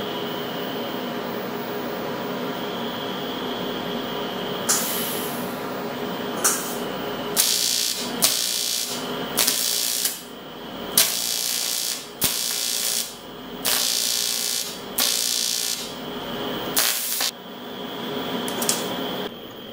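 TIG welding arc on cast aluminium, struck in about a dozen short hissing bursts, each under a second, starting and stopping abruptly, as the weld is laid in dabs. A steady electrical buzz runs before and between the bursts.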